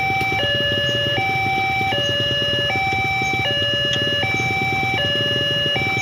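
Railway level-crossing warning alarm: an electronic two-tone chime that switches between a higher and a lower note about every 0.8 seconds, sounding while the barrier is down. A steady low rumble runs beneath it.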